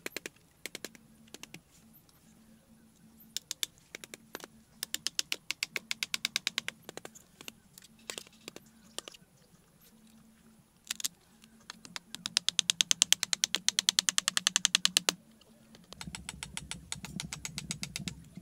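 A large knife striking bamboo in rapid runs of quick, sharp taps, many to the second, as it cuts into a bamboo railing post. The loudest run lasts about three seconds, a little past the middle.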